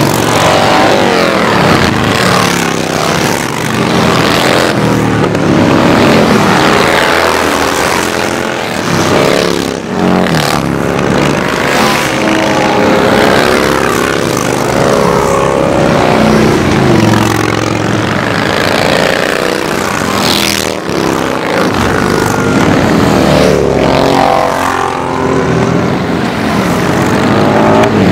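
A steady stream of motorcycles, mostly cruisers and touring bikes, riding past one after another at parade pace: many engines running at once, each one's pitch rising and falling as it comes by and moves off.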